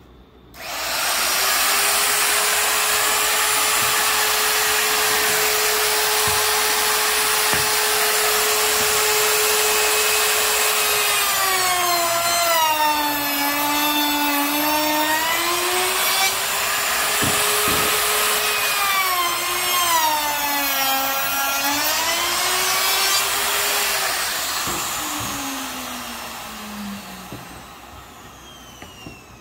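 Electric woodworking power tool cutting slots for a spline joint in the countertop's wood: the motor starts abruptly, runs at a steady high speed, and its pitch drops twice as it bites into the wood. Near the end it is switched off and the pitch falls as it winds down.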